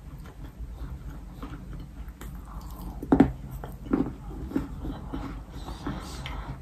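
Chewing a baked yellow sandy clay cookie coated in clay paste: irregular crunches, loudest about three and four seconds in.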